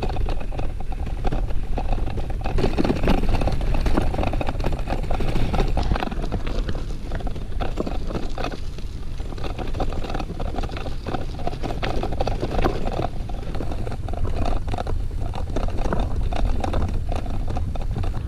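Bicycle ridden over a bumpy mown hay field: a steady rumble from the tyres over rough ground, full of rattles and knocks from the loaded bike, with wind buffeting the bike-mounted microphone.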